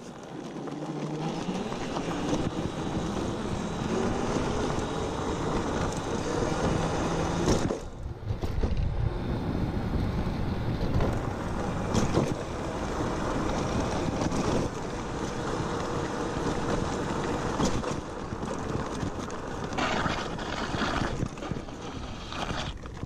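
Electric scooter being ridden: its motor whine rises in pitch over the first few seconds as it gathers speed, then holds steady, under heavy wind noise on the microphone and tyre rumble on concrete.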